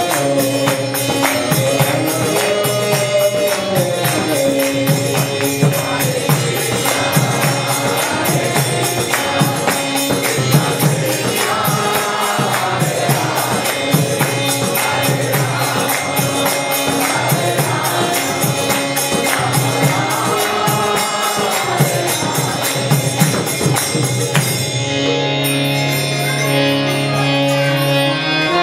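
Devotional chanting to a Bina harmonium: a man sings the melody over the harmonium's sustained reed chords while metal hand percussion keeps a fast, even rhythm. About 25 seconds in the percussion and singing stop, leaving the harmonium's held chords alone.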